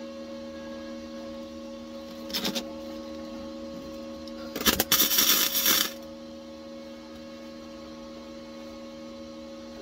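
MIG welder arc crackling in two short bursts, a brief one and then a longer, louder one, as small holes in a car's steel floor tunnel are filled with welds. A steady electrical hum runs underneath.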